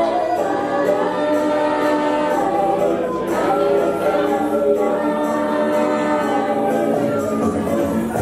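Roots reggae record playing over a sound system: several voices singing long, held harmonies over sparse backing, with almost no bass until the bass line comes back in right at the end.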